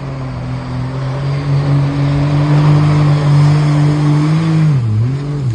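Mini jet boat's engine running hard at high revs, getting louder as the boat speeds close by. Near the end the engine note dips and climbs back up.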